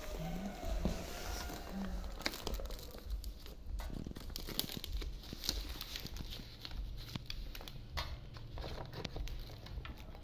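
Large dong leaves rustling and crinkling as hands fold and press them to wrap a bánh chưng rice cake, in irregular small crackles.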